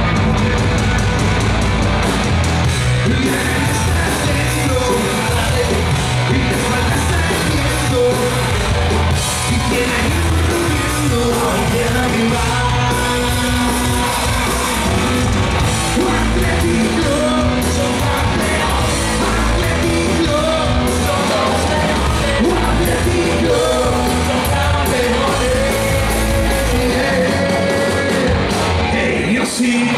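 Punk rock band playing live and loud: electric guitar, bass guitar and drums with singing, heard from the audience.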